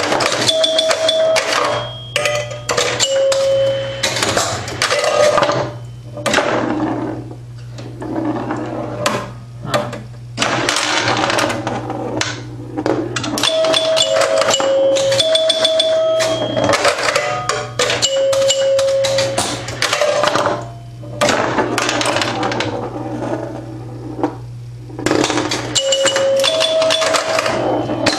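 A 1974 Bally Champ electromechanical pinball machine in play: dense rapid clicking and clacking of relays, stepper units and solenoids, with short bell-like chime tones at a few fixed pitches ringing again and again over a steady electrical hum.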